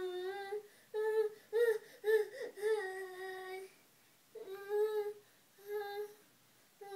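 Toddler whining in a high-pitched sing-song voice, a string of drawn-out held notes with a pause of about a second in the middle.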